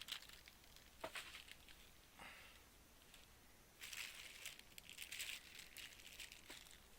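Faint crinkling of plastic-bagged model-kit parts being handled, with a couple of light clicks early and a longer bout of crinkling about four seconds in.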